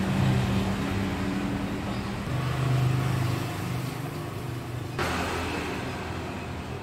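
Road traffic: vehicle engines running, a steady low hum whose pitch shifts, with a sudden change about five seconds in.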